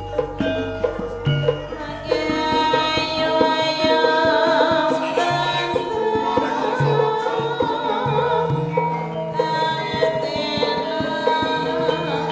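Javanese gamelan music with hand-drum strokes, filling out and growing louder about two seconds in.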